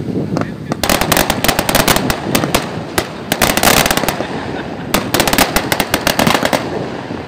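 Dense, rapid crackling pops coming in several bursts, each lasting about half a second to a second, with short gaps between them.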